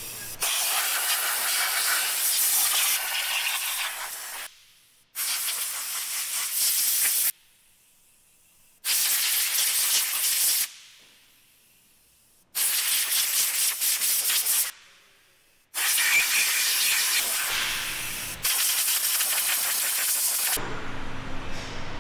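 Hissing blasts of compressed air from a blow gun, mixed with aerosol cleaner spray, cleaning an engine and gearbox. There are six bursts of two to four seconds each, each starting abruptly, with short quiet gaps between them.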